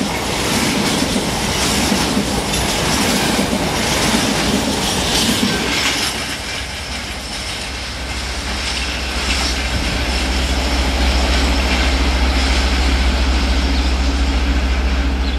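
Freight train hopper wagons rolling past close by, their wheels clattering over the rails with repeated clacks. About six seconds in the passing noise fades as the train draws away, and a steady low rumble takes over.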